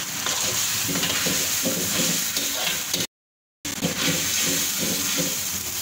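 Chicken in pineapple sauce sizzling and bubbling in a wok over a gas flame as a ladle stirs it, the sauce just thickened with cornflour. The sound drops out completely for about half a second a little past halfway.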